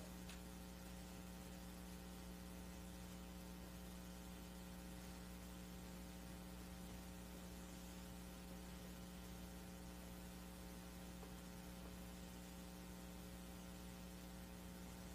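Faint, steady electrical hum with light hiss on the recording, unchanging throughout.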